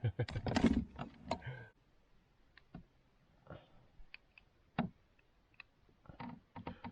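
Handling noise as a caught sunfish is unhooked: a flurry of knocks and rustles in the first second and a half, then scattered small clicks and taps.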